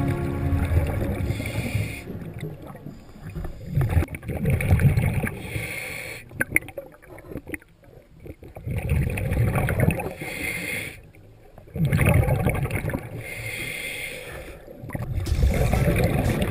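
Scuba diver breathing underwater through a regulator: a hiss on each inhale and a rush of gurgling exhaled bubbles on each exhale, repeating every few seconds.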